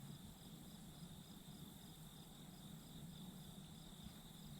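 Faint chorus of chirping insects: one steady high trill, with a second, higher chirp pulsing evenly a few times a second, over a low rushing background.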